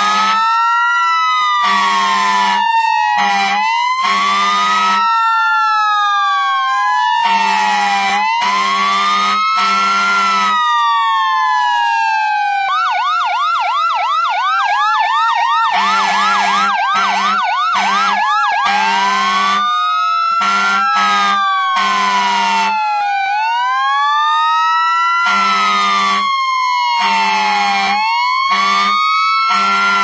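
Fire truck siren wailing, its pitch rising and falling slowly every few seconds, switching to a fast yelp for several seconds midway, with repeated short blasts of a low horn throughout.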